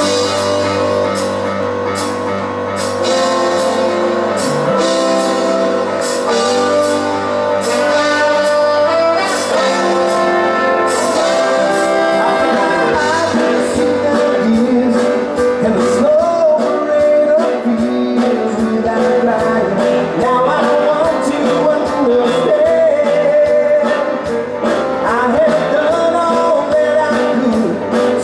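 Live rock band with a horn section playing a song with singing, over drums, electric guitar, bass and keyboard. The music comes in suddenly at the start.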